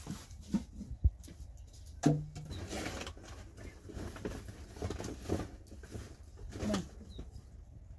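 Quiet background with scattered light knocks and handling sounds, a short murmured vocal sound about two seconds in and another near the end.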